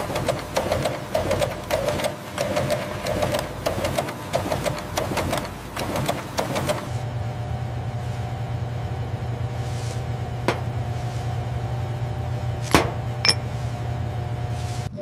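Label printing press running with a fast, dense mechanical clatter that stops abruptly about seven seconds in, leaving a steady low hum with a thin steady tone. Near the end, two sharp knocks about half a second apart from a rubber stamp being struck down.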